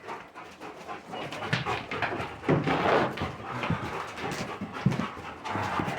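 Dog panting hard, overheated and tired from working in the heat.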